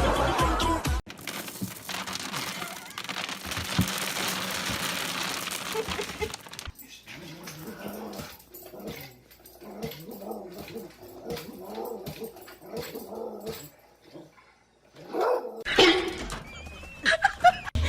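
A dog vocalizing in a run of short, repeated pitched calls, after a stretch of noise.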